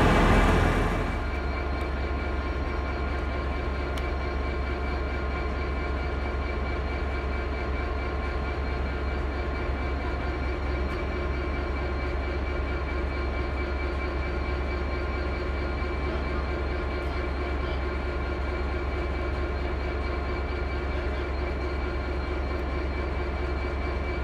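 Diesel train engine idling steadily: a constant hum with several held tones over a deep rumble. A louder sound dies away about a second in.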